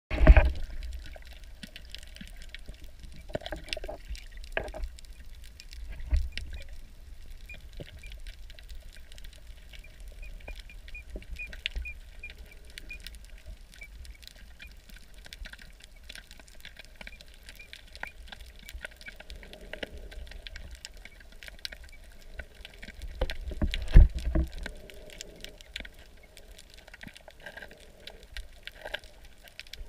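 Underwater sound picked up by a camera held under the surface while snorkeling over a reef: a steady crackle of short clicks over a low rumble, with a few muffled thumps, the loudest right at the start and about 24 seconds in.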